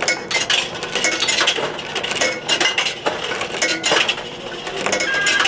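Coins dropped one after another into the payment slot of a coin-operated luggage locker, a quick run of metallic clinks and rattles, paying the overtime charge.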